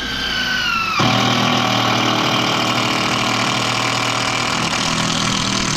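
A handheld power tool motor running under load: a whine that sags in pitch, then a sudden change about a second in to a steady, harsh, noisy running.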